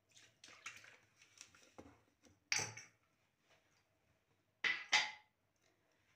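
Water poured from a drinking glass into a plastic mixing bowl, followed by sharp knocks and clinks of the glass and kitchenware against a stone counter: one about two and a half seconds in, then two close together near the end.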